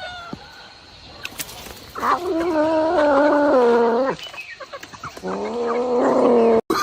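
Two long, wavering pitched animal calls, each lasting a couple of seconds, the second ending in an abrupt cut.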